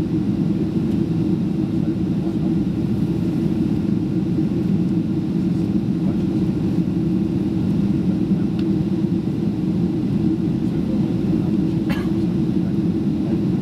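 Steady cabin roar inside a Boeing 767-336 in flight: engine and airflow noise with its weight in the low range, unchanging. A faint click comes about twelve seconds in.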